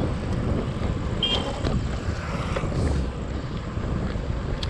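Wind buffeting the microphone and a steady low rumble of bicycle tyres rolling on a paved road. A brief high chirp comes about a second in, and a sharp click near the end.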